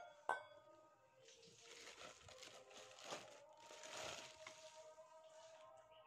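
Clear plastic film wrapped around stainless steel mixing bowls crinkling faintly as the bowls are handled, after a sharp metal tap just after the start.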